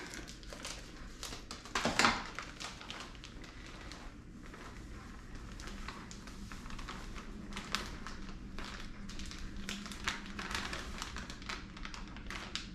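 Crinkling and rustling of a bag of confectioner's sugar as it is cut open, tipped and emptied into a mixing bowl, with a louder rustle about two seconds in and light crackles and taps after.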